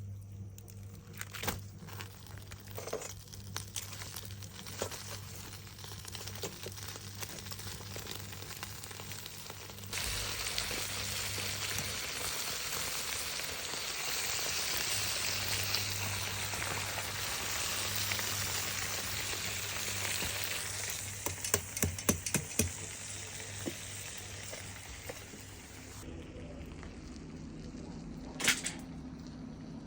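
Food frying in a pan. Scattered crackles and pops come first; then a dense sizzle starts abruptly about ten seconds in, with a flurry of loud pops in its later part, and it stops after about sixteen seconds, leaving a low hum and one last sharp pop.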